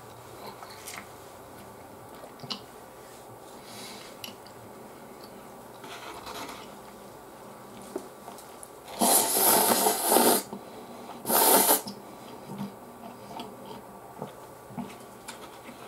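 Close-up eating sounds: soft chewing and small mouth clicks, then two loud slurps of Chicken Ramen instant noodles past the middle, the first about a second and a half long and the second shorter.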